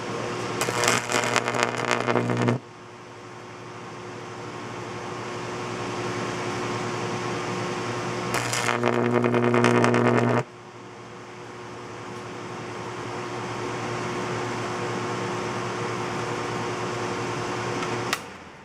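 Microwave oven transformer humming while carbon battery rods are arced across its output, with two loud crackling, sizzling arcs of about two seconds each that cut off suddenly. Near the end a click, and the hum falls away as the power is switched off.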